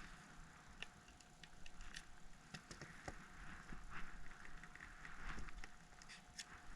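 Faint scraping and scattered small clicks of metal repair tools working against an iPhone 6s, as its battery is pried up and its stuck adhesive tabs are worked free.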